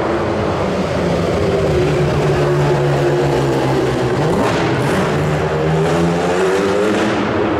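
Tyrrell Formula 1 car's racing engine running at low revs through tight turns inside an exhibition hall, the revs climbing sharply about four and a half seconds in and then swinging up and down.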